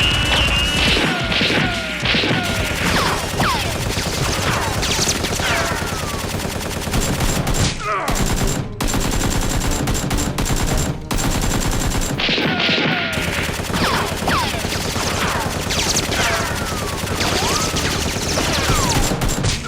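Gunfight sound effects: dense, rapid gunfire with falling whistling sweeps running through it, broken by a few brief sudden dropouts.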